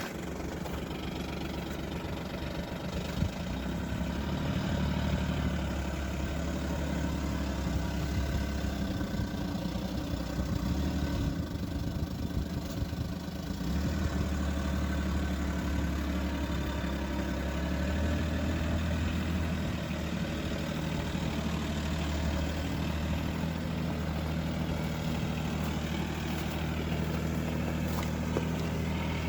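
ATV engine running at low speed as it manoeuvres with a trailer in tow, its note easing off for a few seconds around the middle before picking up again.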